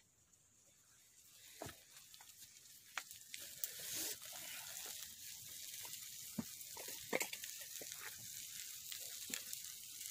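Wood fire crackling and hissing under a cooking pot, with sharp pops scattered through; the hiss rises from near silence about a second in and then holds steady.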